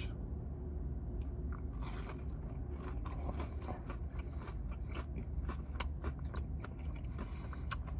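Close-miked biting and chewing of Parmesan garlic chicken tenders, with scattered crisp crunches and wet mouth clicks over a low steady hum.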